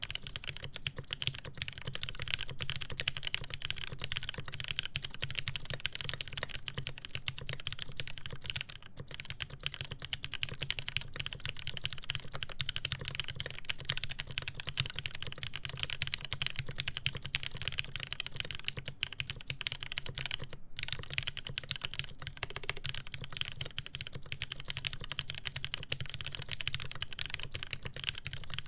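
Continuous fast typing on a custom mechanical keyboard with lubed Cherry MX Speed Silver linear switches, a polycarbonate plate and GMK Dolch keycaps: a dense stream of key clacks, with a momentary pause about two-thirds of the way through.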